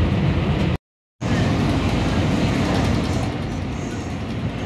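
Running noise of a Siemens SD160 light rail car heard from inside the car: a steady low rumble of wheels on rail. The sound cuts out completely for a moment about a second in, then carries on, a little quieter near the end.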